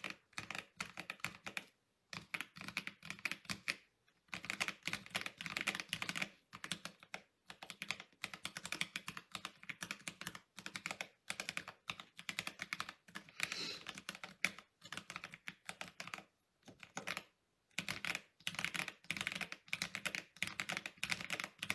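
Typing on a mechanical keyboard with stock, unlubed Akko CS Sponge tactile switches and PBT keycaps in a lightly foam- and tape-modded ID67 v2 board. Runs of quick keystrokes are broken by short pauses a few times.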